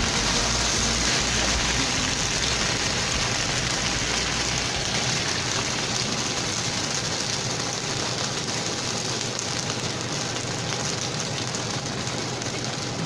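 Chicken pieces sizzling in a hot pan as the sauce cooks in, a steady hiss that eases slightly over the seconds.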